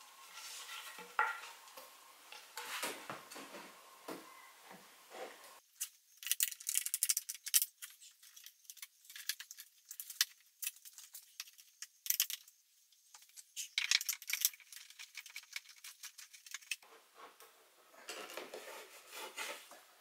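A decorative wooden panel being handled and pressed against a plywood fireplace front: light knocks, taps and rattles of wood on wood. In the middle the sound turns thin and crackly, a quick run of high clicks, before the fuller knocks return near the end.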